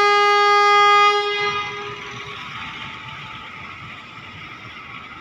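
Train horn sounding one steady, single-pitched blast that stops about a second in and dies away, leaving steady train noise behind it.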